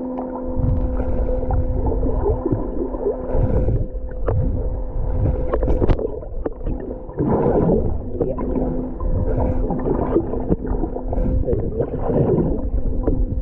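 Muffled underwater sound from a camera held just under the sea surface: water gurgling and sloshing around it in irregular surges, over a steady low hum.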